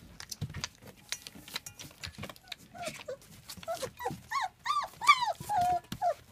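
German Shepherd puppies whining and yelping in short, rising-and-falling calls, several in a row starting about four seconds in, over a steady scatter of clicks and clinks from puppies eating out of stainless steel bowls.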